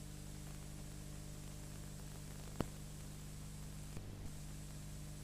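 Steady electrical mains hum and hiss from the recording, with a single sharp click about two and a half seconds in.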